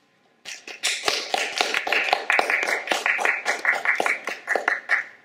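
Audience applauding. The clapping starts about half a second in and stops near the end.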